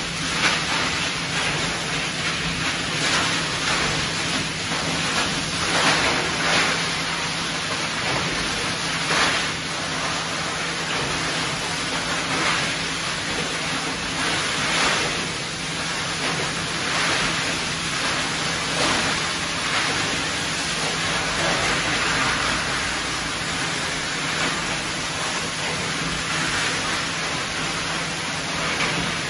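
Shredwell HS-1280 e-waste hammer shredding line running under load: a loud, dense, steady din over a constant low hum, swelling brighter every two to three seconds.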